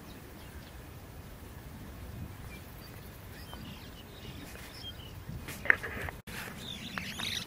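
Birds chirping faintly in short calls over a low outdoor rumble, with one sharp click a little past halfway.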